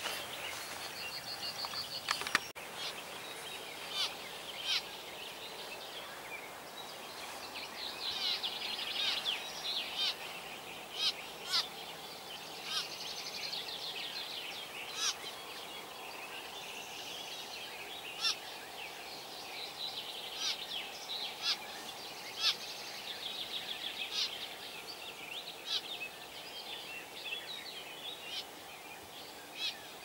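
Many wild birds singing together, with fast trills and sharp short chirps that stand out every few seconds, over a steady soft background noise.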